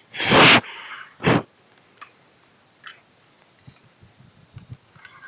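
Handling noise from the camera being moved and rubbed against clothing: two loud scuffs in the first second and a half, the first the loudest, then a few faint ticks.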